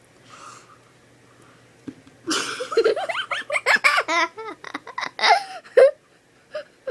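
People laughing hard in high-pitched, breaking giggles, starting about two seconds in and stopping just before the end.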